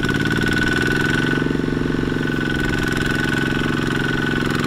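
Kubota walking tractor's single-cylinder diesel engine running steadily with a rapid, even firing beat as the tractor pulls through mud, with a steady high whine over it.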